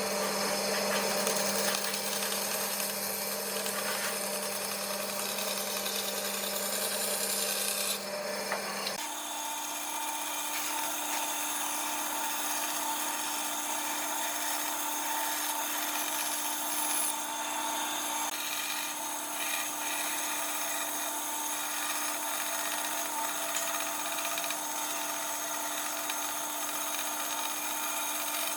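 A power tool running steadily on wood. About nine seconds in, its steady hum shifts abruptly to a higher pitch.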